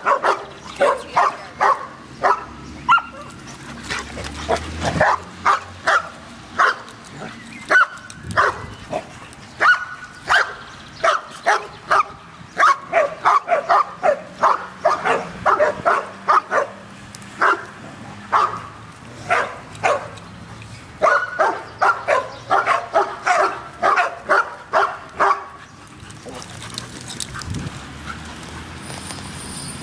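A dog barking over and over in quick runs of short, sharp barks, stopping near the end.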